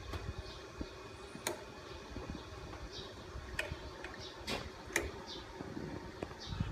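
Scattered sharp metallic clicks from the measuring bracket and dial-gauge probe of a common-rail injector stage 3 tester being lowered and adjusted by hand, over a low background hum.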